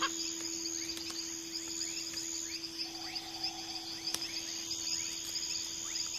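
Tropical rainforest ambience: a steady high chorus of insects, with short falling chirps repeating about twice a second over a steady low hum.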